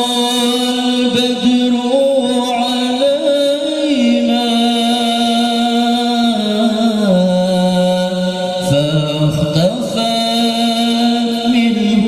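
A male qori reciting the Quran in the melodic tilawah style into a handheld microphone. He sings long held, ornamented notes that step down in pitch about halfway through and climb again near the end, with one short break for breath.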